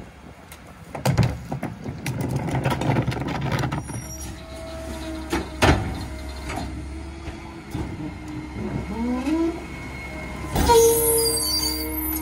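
Rear-loader garbage truck working at the curb: a cart bangs against the hopper as it is emptied, then the engine revs and the hydraulic packer whines, rising in pitch as the blade cycles. A sudden burst of hissing comes near the end.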